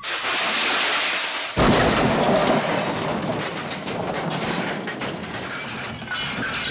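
A loud hissing rush starts suddenly, and about a second and a half in a deep rumbling boom joins it and keeps rolling, slowly fading: a crash or boom sound effect.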